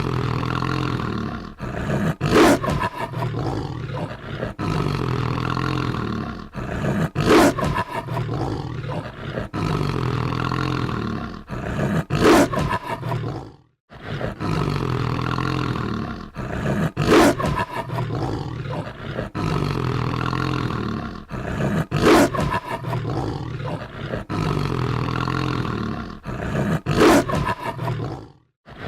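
Werewolf growl sound effect: a deep, continuous monster growl with a louder outburst about every five seconds. It breaks off for a moment about halfway and the same growl sequence starts over.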